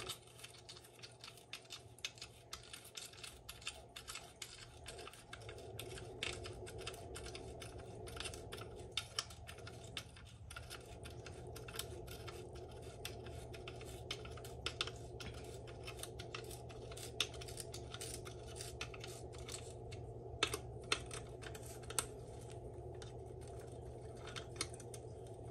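Ratchet with a 10 mm socket clicking in quick runs of ticks as it runs down the reverse selector screws in a Honda B-series transmission case, over a steady low hum.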